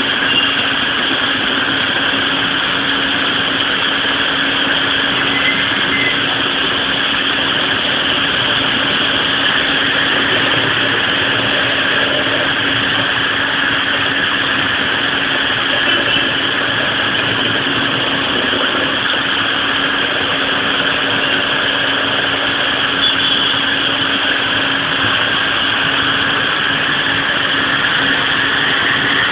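Heavy rain falling steadily, a constant even hiss, with one steady low hum underneath.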